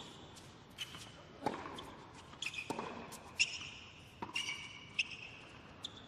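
Tennis rally on a hard court: sharp racket strikes and ball bounces come every half second to a second. Short high squeaks of shoes on the court come between the shots.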